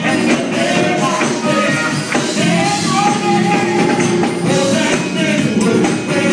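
A live church band playing: electric guitars, drum kit and keyboard in a steady upbeat rhythm, with a man singing lead over it.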